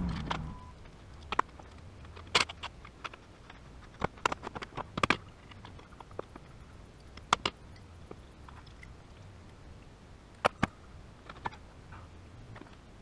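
Scattered sharp clicks and knocks of tools and metal parts, singly and in short clusters, while someone works at taking off a boat's stern-drive outdrive. A low steady hum cuts off about half a second in.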